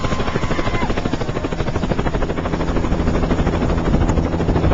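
Helicopter in flight, heard from the cabin: a fast, even chop of the rotor blades over a steady engine drone. A thin high tone stops within the first second.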